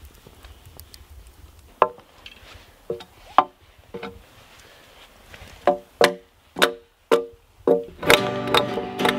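A series of sharp strikes, each ringing briefly, at uneven intervals. Near the end, background music with guitar and banjo comes in.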